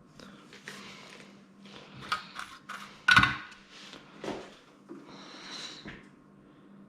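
Small objects and tools being handled on a workbench: a run of scrapes, rustles and light clinks, with one sharp knock about three seconds in.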